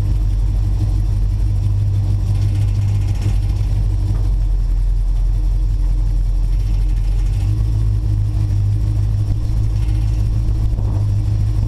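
Car engine running as the car drives along, heard from inside a stripped bare-metal cabin: a loud, steady low drone whose note shifts slightly about seven and a half seconds in.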